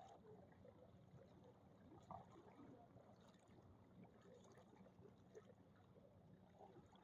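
Faint, irregular sloshing of floodwater as someone wades through knee-deep water.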